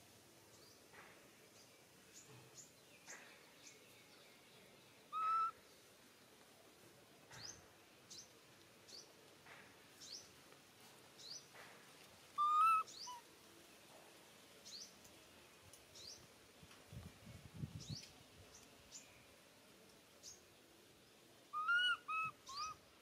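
Birds calling outdoors: many short high chirps scattered throughout, with a louder clear call about five seconds in, another about twelve seconds in, and a quick run of four near the end.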